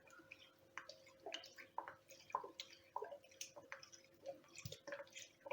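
Faint, irregular drips and small splashes of lemon juice being poured into a thick milky mixture in a bowl, a few small plops a second.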